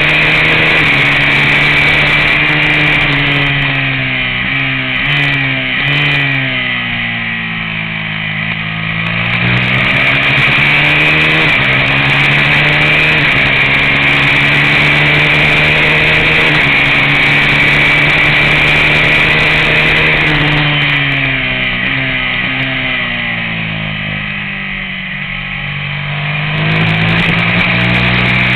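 Racing motorcycle engine run hard on track, with heavy wind rush. Twice the revs fall in steps and sag as the bike slows for a corner (downshifting and braking), then climb again under throttle on the way out.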